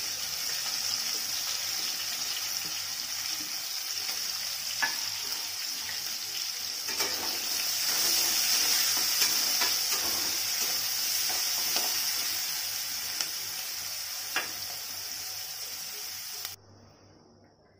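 Chopped onions sizzling in hot oil in an aluminium kadai, frying to brown, with a few sharp clinks of a steel spatula stirring against the pan. The sizzle cuts off suddenly near the end.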